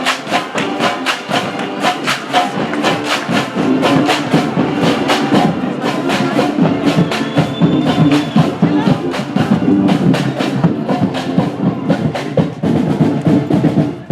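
Marching band playing, wind instruments over a driving drumline with many sharp drum strokes; the music cuts off sharply at the very end.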